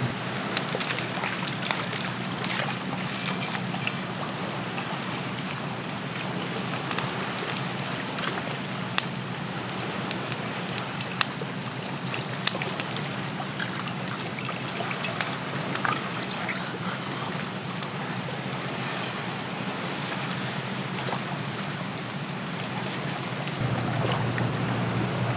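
Water trickling steadily, with scattered sharp clicks and taps through it.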